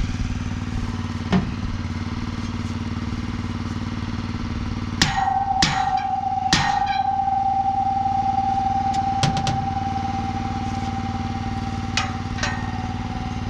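Engine running steadily throughout, with a scattering of sharp metal clanks. About five seconds in, a quick run of three strikes sets off a clear ringing tone that hangs on for several seconds.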